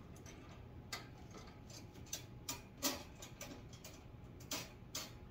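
Pliers bending a metal clip on a wire basket back into place: a handful of irregular light metallic clicks and ticks, the sharpest about three seconds in.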